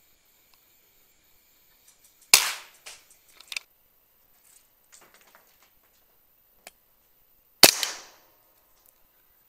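Two shots from a PCP air rifle, about five seconds apart, each a sharp crack with a short fading tail, with a few faint clicks and taps after the first.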